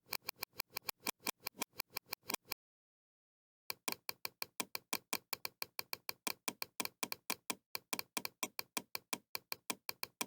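Rapid computer mouse clicks from Bandicam's mouse-click sound effect, about five a second. They stop dead for about a second before resuming.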